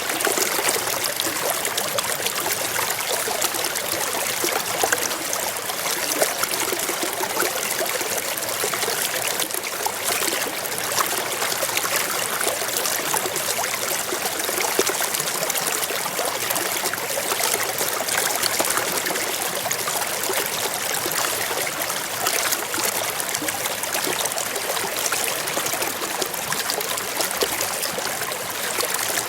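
A shallow mountain stream flowing over rocks: steady rushing and trickling of water.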